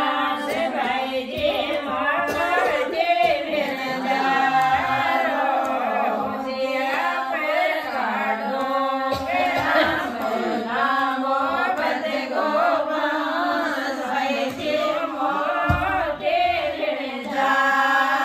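Women's voices singing a Shekhawati (Rajasthani) wedding folk song together, a ratijaga geet, in a steady chant-like melody.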